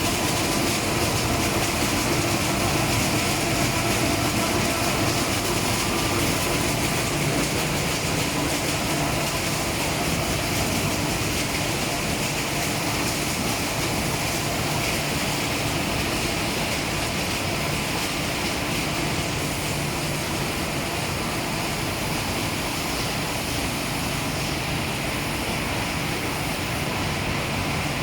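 Roll-fed flatbed die cutting machines running, a steady, dense mechanical din.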